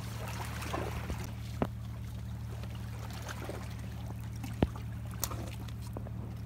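Komodo dragon tearing at a dead sea turtle's carcass: wet tearing and a few sharp snaps, the loudest about one and a half and four and a half seconds in, over a steady low hum.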